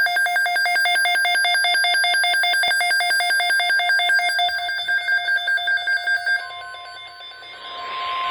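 Emergency Alert System attention tone: an electronic alarm of two tones pulsing rapidly. About six seconds in it gives way to a single steady tone with hiss behind it.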